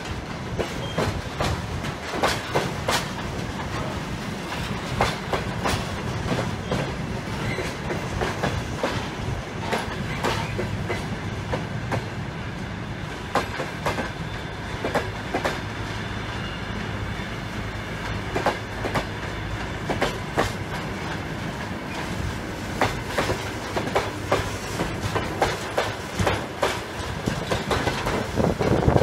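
Railway wagons of a works train rolling past at low speed. Their wheels click over the rail joints at uneven intervals over a steady rumble and a low hum.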